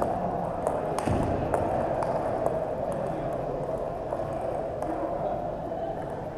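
Scattered light clicks of table tennis balls bouncing and being struck, over a steady hum and faint chatter in a large gym hall.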